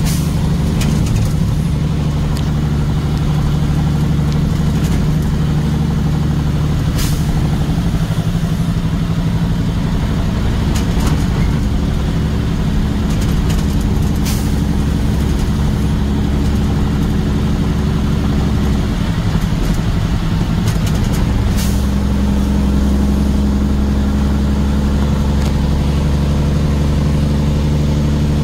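Motor vehicle engine running at a steady low hum, its pitch dropping about 8 seconds in and rising again about 21 seconds in, with a few brief clicks or rattles over it.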